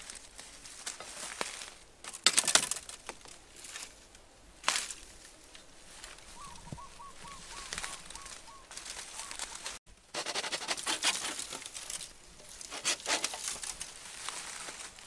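A knife chopping into bamboo with two sharp cracks, and dry leaves and grass crackling underfoot. In the middle a bird calls a quick string of about nine short, even notes. Later comes a longer stretch of steady crackling and rustling through dry leaf litter.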